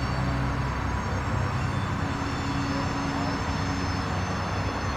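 Freight train rolling past at a distance: a steady rumble of cars going by over a low engine drone, with a faint high steady whine above it.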